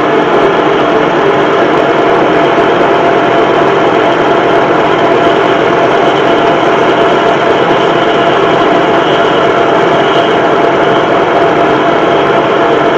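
Metal lathe running steadily with an even, many-toned hum while a cutting tool turns the end of a spinning stainless steel rod.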